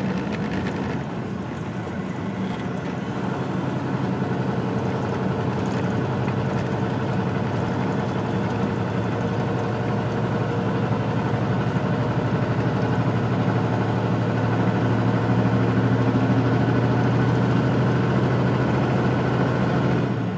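Semi truck's diesel engine running steadily under a heavy load of about 76,000 pounds gross, climbing a grade, heard inside the cab; it grows slowly louder over the first fifteen seconds or so.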